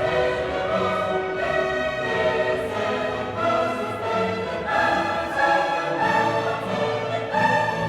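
Background classical music: an orchestra with choir singing sustained notes.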